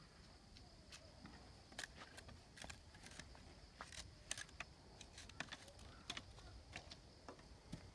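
Faint, irregular clicks and light scrapes of a knife working a green bamboo pole, scattered ticks spread unevenly over several seconds.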